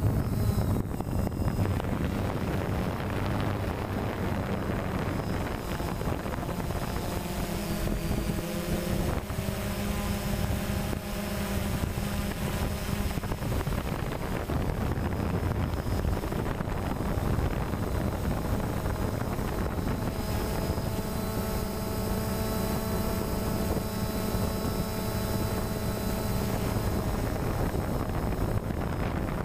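DJI Phantom quadcopter's motors and propellers whirring in flight, picked up by the onboard camera, with wind rushing over the microphone. The motor hum shifts in pitch as the drone manoeuvres.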